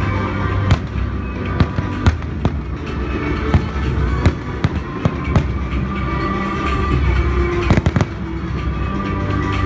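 Fireworks going off overhead in an irregular string of sharp bangs, some of them close together. Music with a heavy bass plays under them.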